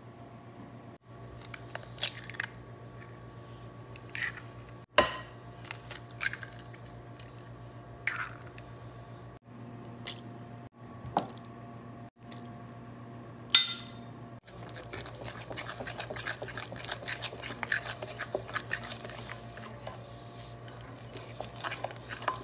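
Brownie batter being made in a glass mixing bowl. In the first part, ingredients going in give scattered single clinks and knocks against the glass, with a plastic measuring spoon among them. From about halfway, there is continuous stirring: a spoon scraping and squishing through the thick batter. A steady low hum sits underneath.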